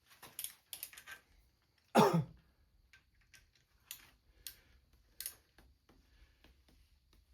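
Scattered light metallic clicks from a socket wrench and extension pulling on small-block Chevy intake manifold bolts, the torque wrench not yet reaching its set torque. A loud single cough from a man about two seconds in.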